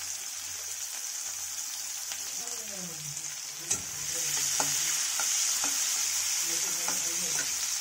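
Sliced onions sizzling in hot oil in a kadai, stirred with a metal spatula that clicks and scrapes against the pan. The sizzle gets louder about halfway through as the onions are stirred.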